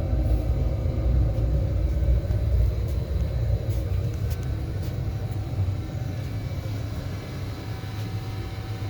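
Oil-fired boiler and its circulating pump running: a steady low rumble with a faint steady hum above it, the rumble easing a little after about five seconds.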